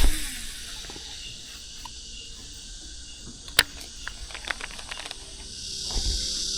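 Quiet outdoor ambience with one sharp click about halfway and a few faint ticks, then a steady high insect buzz fading in near the end.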